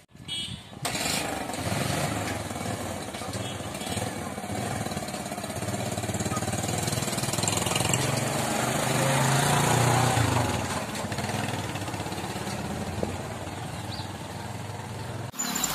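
Motorcycle engines running as bikes ride along a narrow lane, getting louder toward the middle as one comes close, then fading. The sound cuts off abruptly just before the end.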